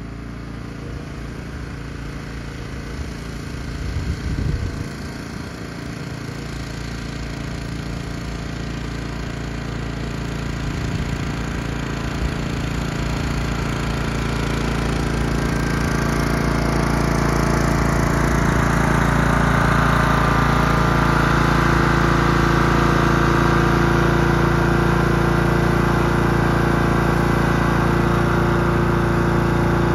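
Cub Cadet riding lawn mower engine running steadily while towing a load. It grows louder through the middle of the stretch and then holds steady.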